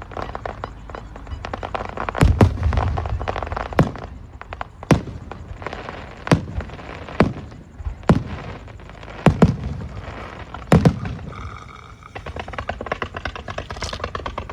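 Fireworks shells bursting overhead: about nine sharp bangs spread over some nine seconds, with crackling between them, then a fainter run of rapid crackles near the end.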